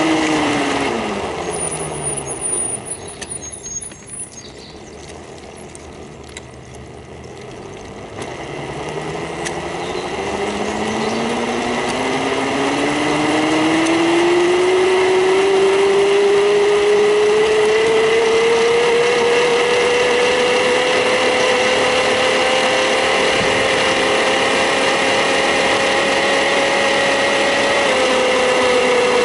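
A 250 W 24 V brushed DC electric motor whining as it spins its friction roller. The pitch falls as the motor slows down over the first couple of seconds and stays low and quiet for a few seconds. It then climbs steadily as the motor speeds back up, holding a steady high whine, with a small dip in speed near the end.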